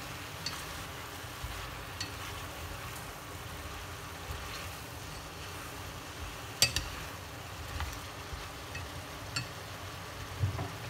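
Chayote shoots and shrimp sizzling as they are stir-fried on high heat in a stainless steel pot, with wooden chopsticks clicking against the pot now and then; the sharpest click comes about two-thirds of the way through.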